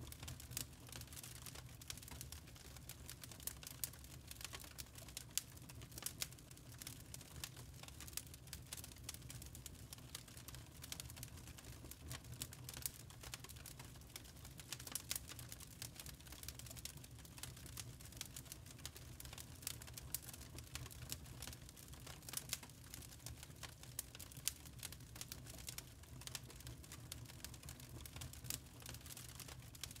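Lump charcoal burning, with frequent small, irregular crackles and ticks over a faint, steady low hum.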